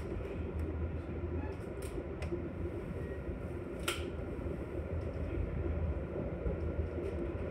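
Steady low rumble of a Metra commuter train car heard from inside the cabin as the train rolls into a station. A few light clicks sound around two seconds in, with a sharper tick about four seconds in.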